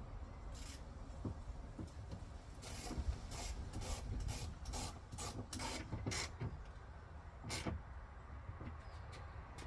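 A run of about a dozen short rubbing and scraping strokes, bunched together in the middle, from parts being handled and moved about during work on the door.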